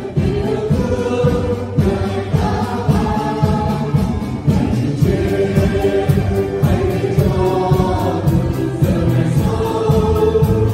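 A small mixed group of men and women singing a Vietnamese Christian hymn together into handheld microphones.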